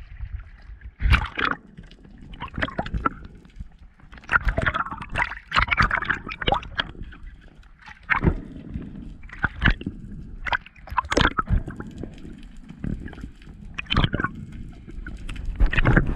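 Water sloshing and gurgling around a camera that is mostly underwater, with irregular splashy bursts every second or so.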